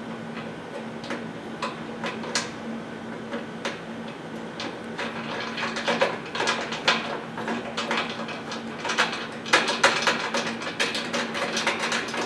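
Small metallic clicks and rattles of a wing nut being spun by hand down a threaded stud, tightening a corrugated metal hurricane shutter panel in place. The clicks come quicker and louder in the second half.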